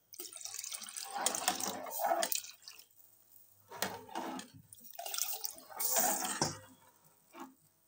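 Thin gram-flour and yogurt batter sloshing and splashing in an aluminium pressure cooker as it is stirred with a metal ladle, in several bursts, with more liquid poured in from a bowl about six seconds in.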